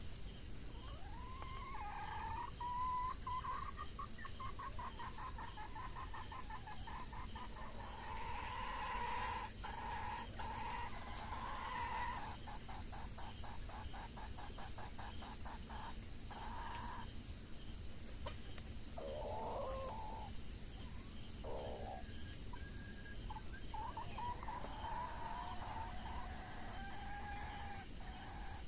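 Red junglefowl crowing several times, with a quick run of rapid clucking calls midway, over a steady high insect drone.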